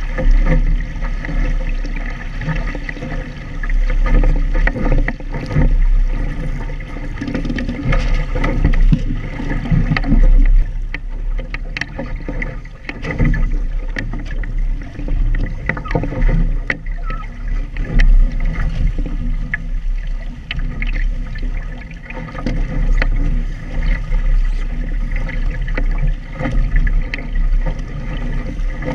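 Water rushing and slapping along the hull of a Phantom sailing dinghy under way in choppy water, with irregular splashes and knocks, and gusting wind buffeting the boat-mounted camera's microphone with a deep rumble.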